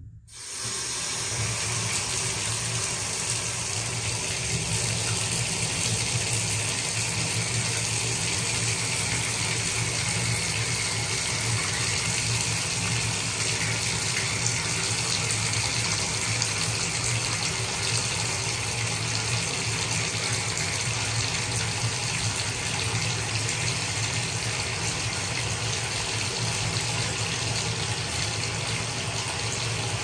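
Bathtub faucet turned on, its stream of water coming on suddenly and settling within about a second into a steady rush as it pours onto the floor of the shallow tub.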